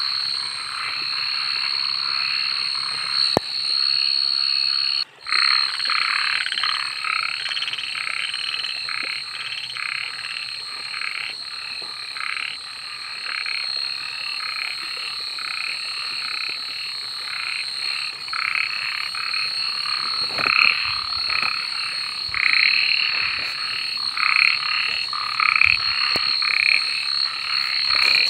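A dense chorus of many frogs calling at once, with rapid overlapping croaks and a steady high-pitched tone running beneath. The sound drops out for a moment about five seconds in.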